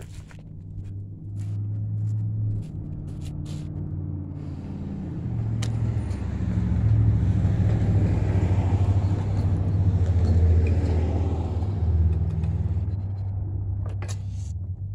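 A motor vehicle's engine running steadily, growing louder through the middle and easing off again. A few sharp clicks and knocks come near the start and near the end.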